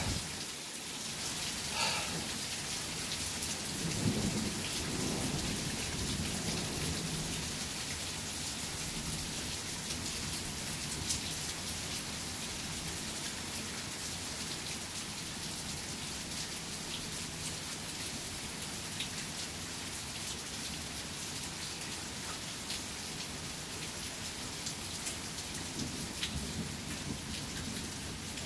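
Steady heavy rain with small hail falling, scattered stones ticking on hard surfaces. Low thunder rumbles about four seconds in and again near the end.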